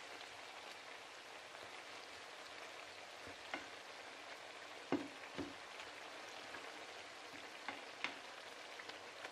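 Sliced potatoes and onions sizzling steadily in hot oil in a frying pan, stirred with a plastic spatula that gives a few light knocks against the pan, mostly in the second half.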